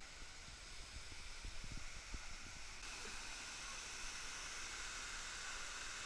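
Steady rush of water pouring over a dam waterfall: a constant hissing wash that grows a little brighter about halfway through.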